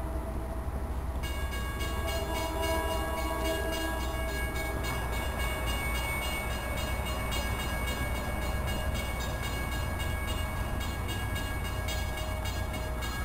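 A train approaching out of sight over a steady low rumble, its horn sounding in the distance and fading out about five seconds in. From about a second in, a steady high-pitched ringing with several held tones runs on.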